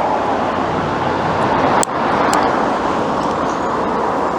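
Steady road traffic noise of cars passing close by on a busy urban main road, with a sharp click just under two seconds in.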